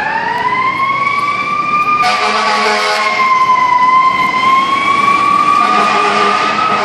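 FDNY ladder truck's siren winding up in a long rising wail, then holding a high, slowly wavering pitch. A lower horn sounds about two seconds in and again near the end.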